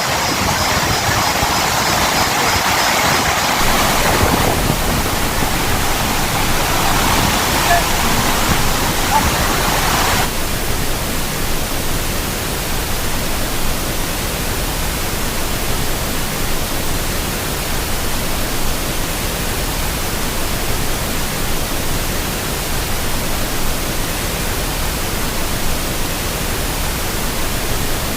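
Waterfall rushing steadily. About ten seconds in, the sound changes abruptly to a flatter, even hiss.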